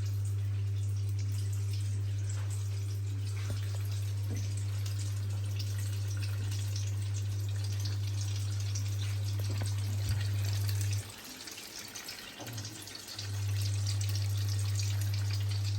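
Chicken pakoras deep-frying in hot oil: a faint steady sizzle and crackle. Under it runs a steady low hum, the loudest sound here, which cuts out for about two seconds past the middle and then returns.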